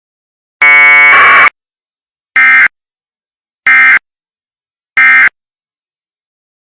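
Emergency Alert System data tones: a harsh electronic burst of about a second, then three short, identical buzzing data bursts about a second apart. This is the SAME end-of-message code that closes an EAS alert.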